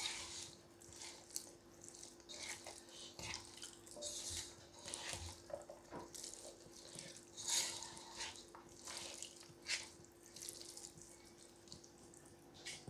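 Hands rubbing an oily masala marinade into a whole raw chicken: faint, irregular wet squelches and rustles.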